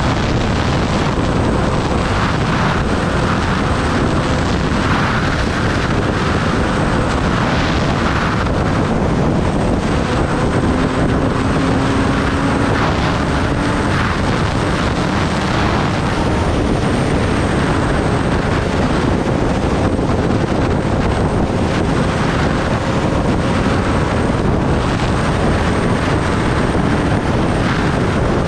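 Kawasaki Ninja ZX-10R's inline-four engine droning at a steady cruising speed, under a loud, even rush of wind over the microphone.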